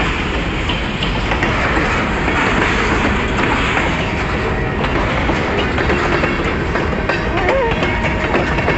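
Freight train cars rolling past, steel wheels rumbling and clicking over the rail joints.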